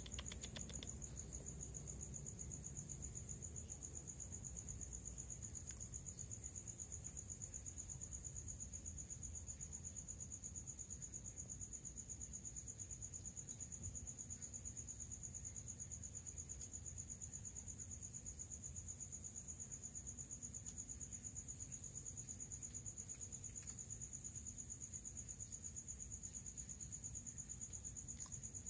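Crickets trilling steadily in one high, fast-pulsing note, over a faint low rumble of background noise. There is a single sharp click at the very start.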